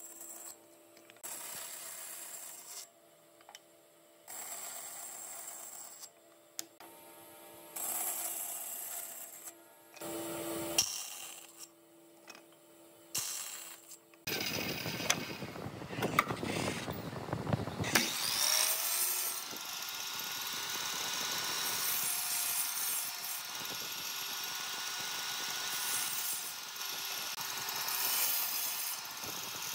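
Woodworking power saws at work: a bandsaw making short, separate cuts through pine strips, then, about halfway through, a longer, louder steady run of saw noise with a faint whine.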